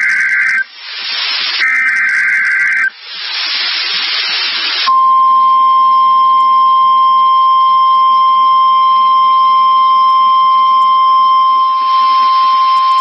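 Weather radio Emergency Alert System header: two screechy bursts of digital data, each about a second and a half long, with radio static between and after them. About five seconds in, the steady single-pitch weather radio warning alarm tone begins and holds, announcing a new warning message.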